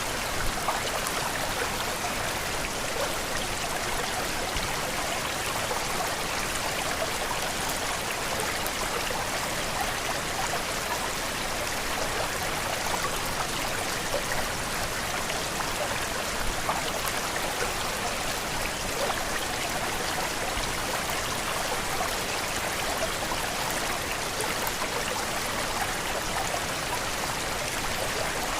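Waterfall: falling water rushing steadily, with a fine splashing crackle.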